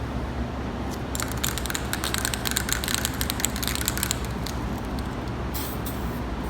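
Aerosol spray-paint can spraying, a crackly hiss from about a second in to about four seconds in, with a shorter burst near the end, over a steady low hum.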